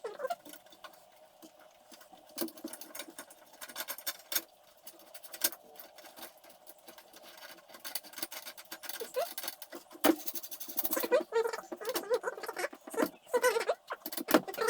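Scattered light clicks and taps of metal parts being handled and fitted, growing busier with rattling near the end.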